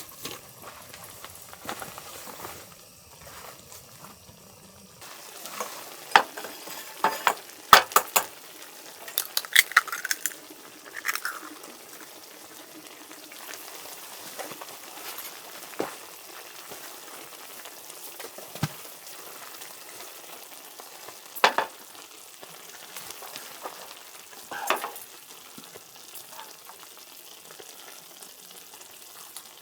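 Sukiyaki sizzling in a pan, with sharp clinks of utensils against the pan, several in a cluster in the middle and a couple more near the end.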